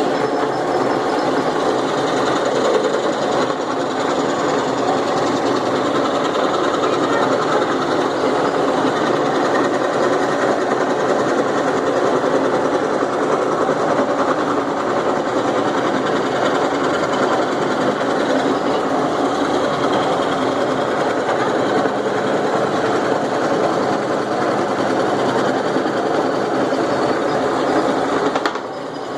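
Electric jigsaw running steadily as its blade saws through a workpiece, a continuous dense buzzing rattle from the reciprocating blade; it eases off just before the end.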